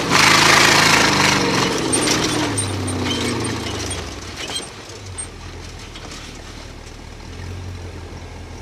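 Off-road rock-racing car's engine heard from inside its cab, running hard with rattling, its revs falling over the first few seconds. It eases off about four and a half seconds in and then runs lower and steady.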